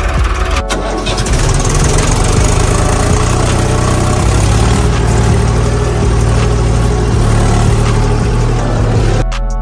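A vehicle engine running steadily. It cuts off abruptly near the end as music with plucked notes and a beat begins.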